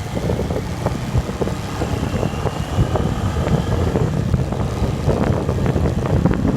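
Wind buffeting the microphone of a bike moving downhill at speed. There is a steady low rumble, with frequent short rattles and knocks over it.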